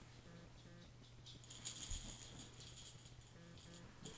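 Soft toy rattling: a short burst of shaking about one and a half seconds in, over a faint steady hum.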